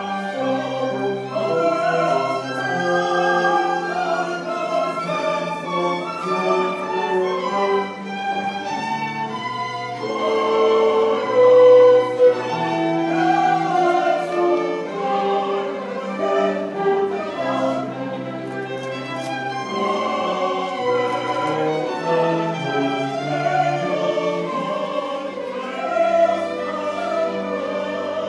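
Classical bridal processional music: bowed strings with an operatic singing voice, in long held notes over a moving bass line, with one louder held note about a third of the way through.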